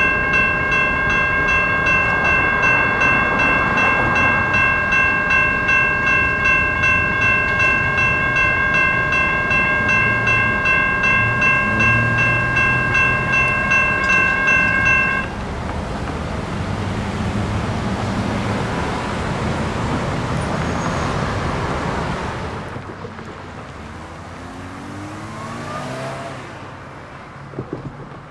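Railroad grade crossing bells ringing steadily at about two strokes a second, then stopping abruptly about fifteen seconds in as the crossing gates rise. After that comes the rushing noise of the departing freight train and road traffic, which fades and drops off a few seconds before the end.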